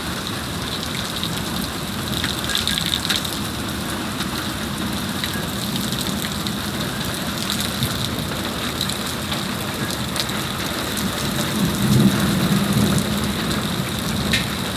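Steady heavy rain falling and pattering on hard surfaces, with many small sharp drop impacts. A low rumble swells briefly about twelve seconds in.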